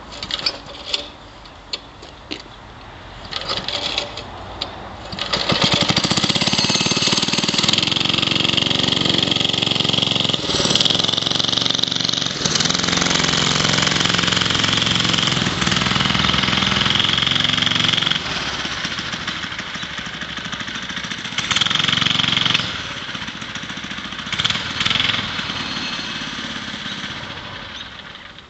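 Small single-cylinder 3 hp Briggs & Stratton engine on a mini bike: after a few short clicks and coughs it catches about five seconds in and runs loudly. It rises and falls as the bike rides away, then fades near the end.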